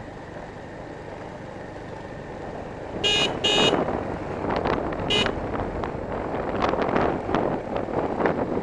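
Motorbike ride with a steady background of engine and road noise; a vehicle horn beeps twice in quick succession about three seconds in and once more about two seconds later. Gusty wind noise on the microphone then builds up.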